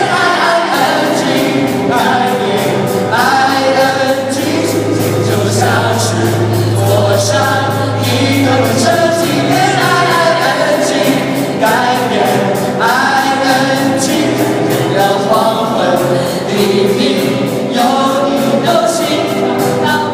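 Several voices singing together over an accompaniment with a steady beat.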